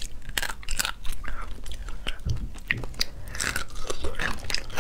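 Close-miked eating of boiled crayfish: biting and chewing the meat, with many sharp crackles and wet mouth clicks.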